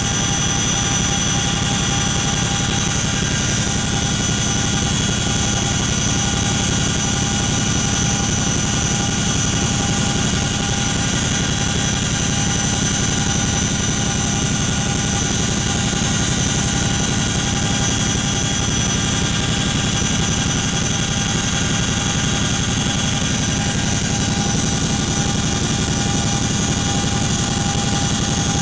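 Inside the cabin of a Boeing CH-47 Chinook twin-engine, tandem-rotor helicopter in steady flight: a loud, constant rumble with several steady high whining tones above it.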